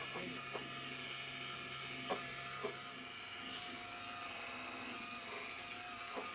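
Electric rotary polisher with a foam buffing pad running steadily at its slowest speed while polishing a plastic headlight lens with polishing compound. It makes a constant whir, with a few light knocks as the pad is worked over the lens.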